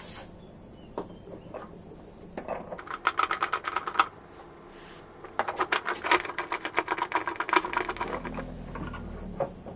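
Two runs of rapid clicking from hand tools during repair work on the washing machine, each lasting a second or two, followed by a low steady hum near the end.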